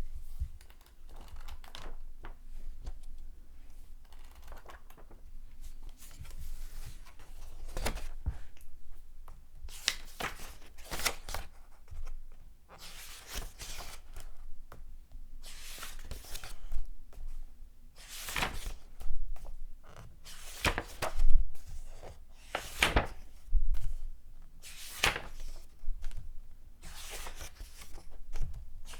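Paper pages being turned by hand, one after another: a series of separate papery swishes and flaps roughly every one to two seconds, some sharper and louder than others.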